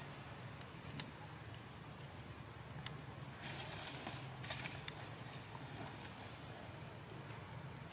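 Quiet outdoor ambience with a steady low hum, a few faint sharp clicks and brief rustles.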